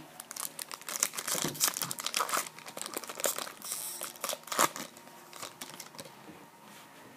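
Crinkling and tearing of a foil trading-card pack wrapper as it is handled and torn open. The crackling is dense for about five seconds, then dies down.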